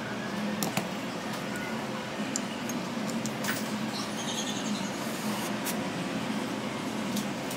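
Scattered small clicks and taps of an iPhone housing and parts being handled on a work mat, over a steady background hum.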